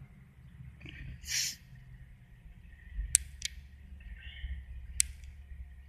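Quiet inside an idling car: a low, steady engine hum, a short hiss about a second and a half in, and a few sharp clicks, two just after three seconds and one near five.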